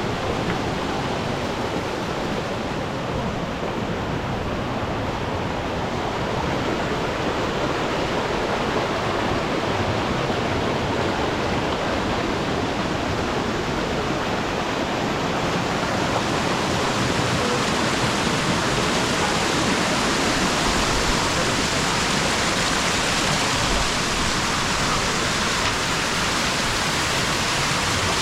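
Waterfall rushing: a steady, loud rush of falling water that grows a little louder and hissier about halfway through.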